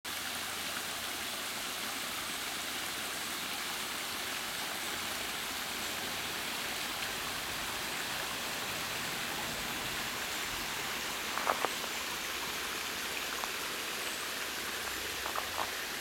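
Water running down a shallow rock-slab waterfall into a stream: a steady rushing hiss. A few short clicks sound about eleven seconds in and again near the end.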